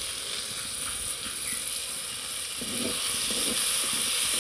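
Hot oil sizzling in a metal karahi as whole cumin and spice paste fry, a steady hiss, with a spatula stirring and knocking against the pan a little past halfway.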